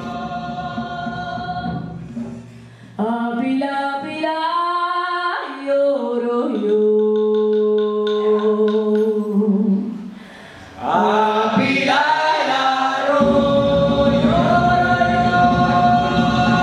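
Slow a cappella singing, the melody stepping between notes and resting on long held tones.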